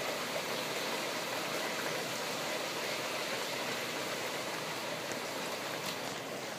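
Rain pouring down steadily, an even hiss of falling water.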